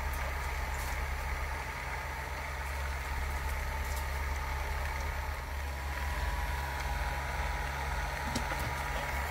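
A steady low mechanical hum, like a motor or engine running, with a thin steady whine above it and a few faint ticks now and then.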